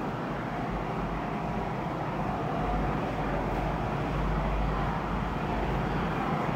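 Steady rushing background noise with a low rumble underneath, growing slightly louder about two and a half seconds in.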